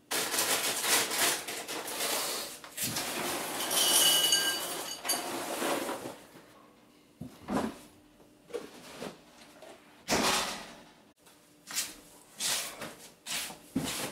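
Kitchen clatter and rustling for about six seconds, with a brief ringing of crockery near the middle of it. Then come separate knocks and rattles as the refrigerator is opened and things inside are handled.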